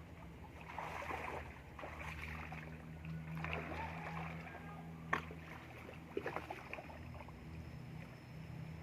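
Water sloshing and splashing in irregular swishes over a low steady hum, with one sharp knock about five seconds in and a few lighter clicks just after.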